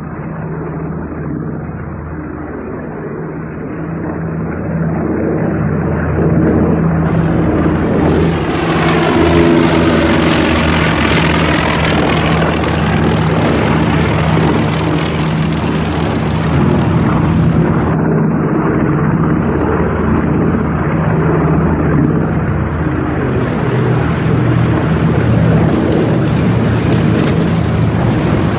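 Piston-engined propeller aircraft droning in flight. The drone swells louder about five seconds in, and an aircraft passes close around ten seconds in.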